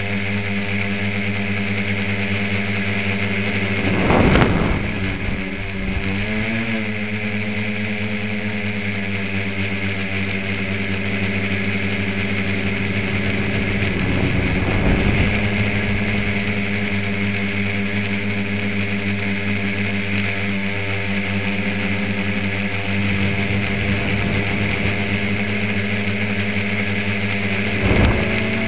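Tricopter's electric motors and propellers buzzing steadily in flight, heard from a camera on board. The pitch wobbles briefly about six seconds in, and short louder rushes of noise come about four, fifteen and twenty-eight seconds in.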